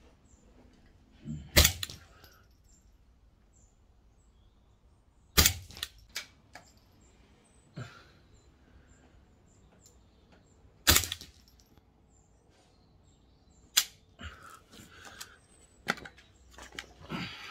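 AP80 AK-style .22 rimfire rifle fired four single shots a few seconds apart, with lighter clicks of the action after them. Near the end come clicks and rattles of the bolt being worked by hand: the bolt is sticking and not cycling cleanly after around 20 rounds.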